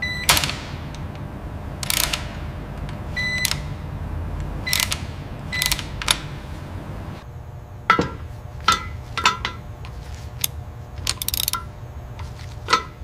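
Ratcheting torque wrench and metal hand tools on an engine block: a dozen or so sharp metallic clicks and clinks at irregular intervals, some with a brief ring, over a steady low factory hum.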